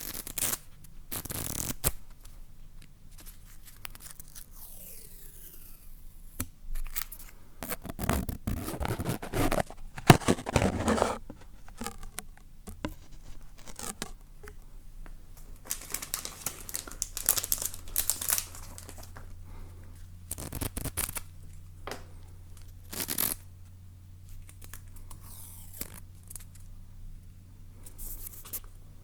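Close-miked ASMR trigger sounds: a material being torn and crinkled by hand in irregular bursts, with quiet gaps between them. The densest, loudest stretch comes about a third of the way in.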